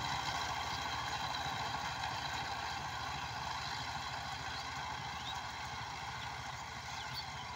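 Two-wheel power tiller's single-cylinder diesel engine running steadily under load as its rotary tiller works dry soil, with a fast, even low beat. It grows gradually fainter as the machine drives away.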